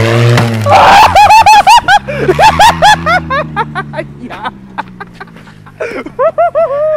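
Loud, rapid, high-pitched laughter in repeated bursts for about two seconds, dying away, with another burst near the end. Underneath, a car engine's revving drops off about half a second in and it keeps idling low.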